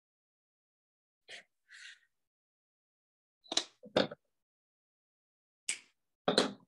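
Scissors handled to snip off the yarn, and small things set down on a tabletop: a handful of short clicks and knocks, the loudest two about half a second apart in the middle.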